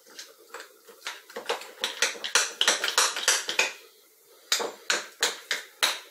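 A spoon beating fritter batter in a bowl, knocking and scraping against the bowl in quick repeated strokes, about four a second, with a short pause a little past the middle.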